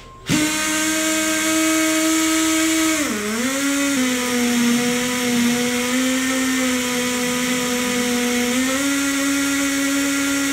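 Tri Tool 208B pipe beveling machine starting up and running, facing the end of 6-inch schedule 80 stainless pipe to square it: a steady motor whine that dips briefly in pitch about three seconds in, settles a little lower, then rises slightly near the end.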